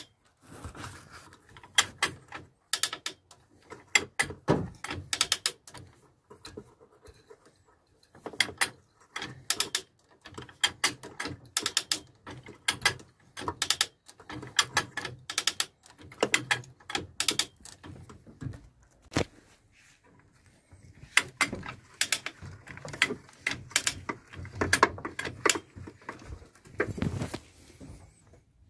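Irregular metal clicks, clinks and knocks from hand work on the gearbox and its mounting bolts as it is fitted to the engine, coming in clusters with short pauses between them.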